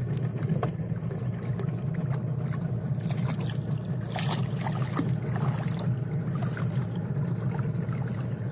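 A boat's engine running steadily as a low, even hum, with scattered splashes and knocks of water against the hull, busiest in the middle, as a swimming monkey reaches the boat.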